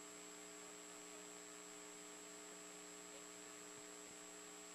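Near silence: a faint, steady electrical hum with a thin high whine above it.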